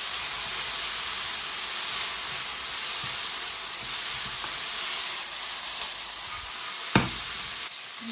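Vegetables and garlic frying in hot oil in a pan while being stir-fried: a steady sizzling hiss, with one sharp knock about seven seconds in.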